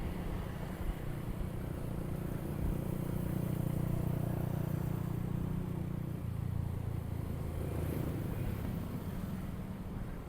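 Motorcycle engine running while riding, a steady low engine note whose pitch drops about six seconds in as the revs come down.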